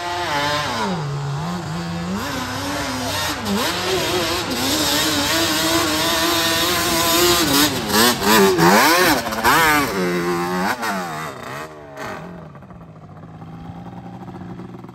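Sport quad ATV engine revving hard on a hill climb, its pitch rising and falling sharply with the throttle. Near the end it drops to a quieter, steadier engine note.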